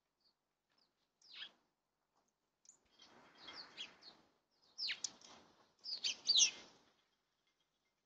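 Small songbirds chirping: a single quick falling chirp about a second in, then three bursts of sharp chirps between about three and seven seconds in.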